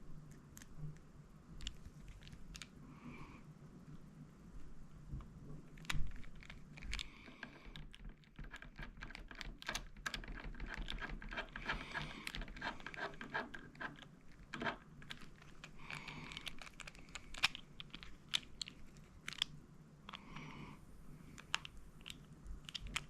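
Small metal clicks and taps from an Icon 1/4-inch ratchet being handled after re-greasing, with a dense run of rapid ratchet-pawl clicking from about nine to fourteen seconds in. One sharper click comes about six seconds in.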